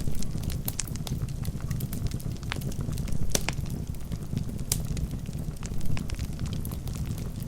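Wood fire burning in a fireplace: a steady low rumble of the flames with scattered sharp pops and crackles from the burning logs.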